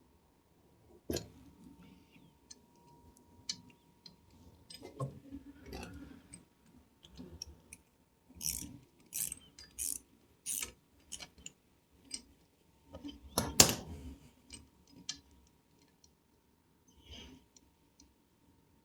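Hand tools working the headsteady bolts on a motorcycle: short runs of ratchet-like clicking with scattered metal clicks and knocks. The loudest knock comes a little past halfway.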